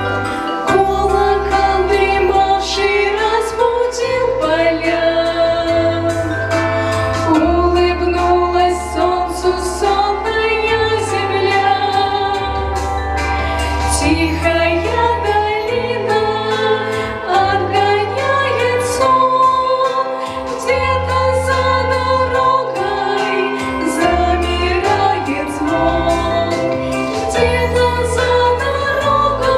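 Two women singing a slow song in two-part harmony over instrumental accompaniment with a low, sustained bass line.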